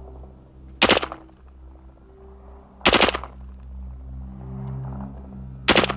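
Colt Canada C7 5.56 mm rifle firing three short automatic bursts, about two seconds apart. Each burst is a few rapid shots.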